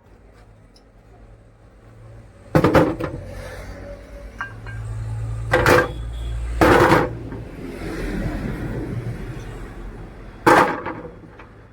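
Four loud clanks, a few seconds apart, with a low rumbling noise between them.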